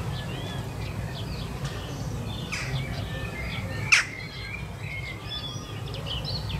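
Small songbirds chirping and singing, many short rising and falling notes, over a low steady rumble. A single sharp click about four seconds in is the loudest sound.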